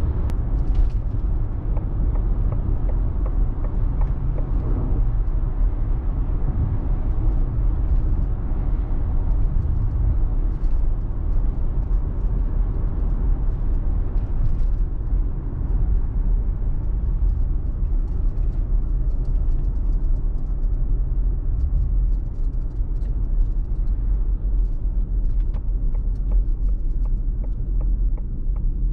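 Steady tyre-on-road rumble and wind noise inside the cabin of a 2021 Ford Mustang Mach-E AWD electric SUV, with no engine note, as the car slows from motorway speed. The higher hiss thins out toward the end as the speed drops.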